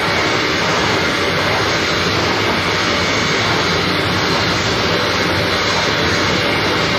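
Harsh noise music played live: a loud, unbroken wall of amplified noise with no beat or melody.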